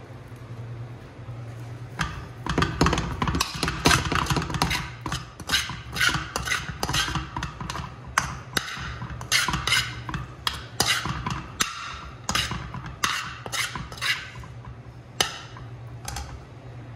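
Metal spoon scraping and knocking against a wok as rice is stir-fried. The strokes come in quick, irregular runs from about two seconds in, over a steady low hum.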